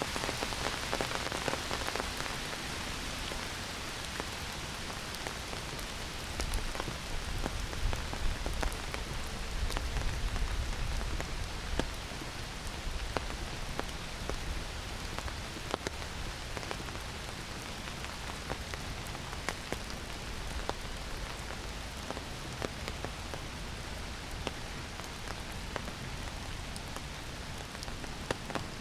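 Heavy rain falling steadily on forest foliage, a dense hiss dotted with many sharp close drop ticks. A low rumble swells under it for several seconds in the middle.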